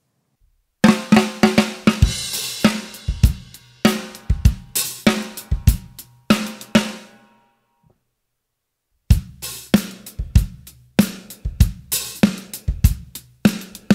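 Full drum kit groove with kick drum and cymbals, the 14x6.5 Gretsch Full Range walnut snare played open with rim shots and ringing out. After a gap of about two seconds the groove starts again with a Mr Muff's Muffin pad on the snare head, still with rim shots, the snare hits now dying away faster.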